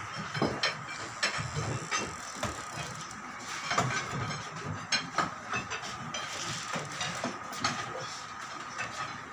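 Irregular metal clinks and knocks from work on the screw jacks propping up a brick house being raised, over a faint steady high whine.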